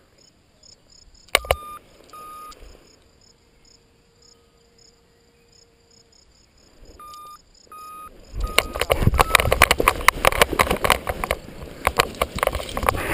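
A few short electronic beeps, some in pairs, over a quiet field. About eight seconds in, loud wind buffeting the microphone sets in, with rapid rustling and knocks, as a paraglider wing is pulled up for launch.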